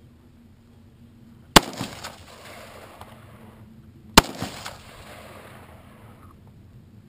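Two single gunshots about two and a half seconds apart, each followed by a rolling echo.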